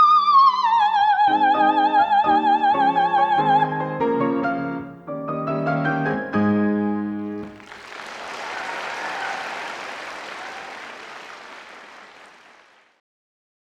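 Coloratura soprano holding a high note with vibrato, then sliding down to a lower held note over piano, and the piano's closing chords ending the aria. About eight seconds in, audience applause starts and fades away near the end.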